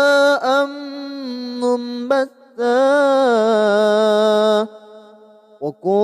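A man's voice reciting the Qur'an in a slow, melodic tajwid style, drawing the word "munbaththā" out into long held notes. A short pause follows near the end.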